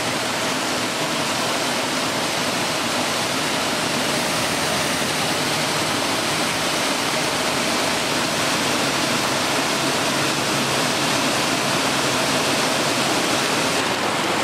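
A fast-flowing mountain creek rushing over rocks: a steady, unbroken rush of water.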